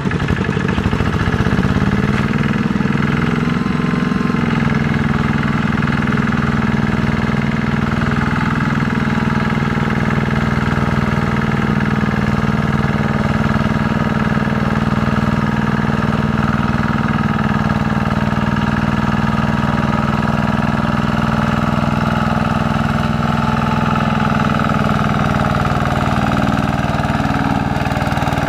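Single-cylinder diesel engine of a two-wheel walking tractor running steadily under load as it hauls a trailer of rice sacks through sticky mud. It picks up speed slightly in the first few seconds, then holds an even, loud beat.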